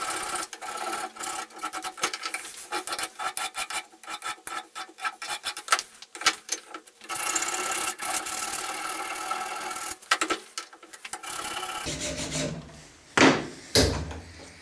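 Flat hand file rasping across a metal clamp-knurler arm held in a bench vise, trimming brazed-on excess material down to the part's contour. It goes in long steady strokes, with a run of short quick strokes in the middle. Near the end come two sharp knocks.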